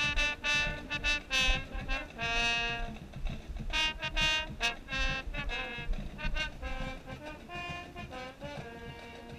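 Marching band mellophones playing a passage, the nearest one right at the microphone: a run of short, separated notes with a few held ones, growing thinner and quieter over the last few seconds.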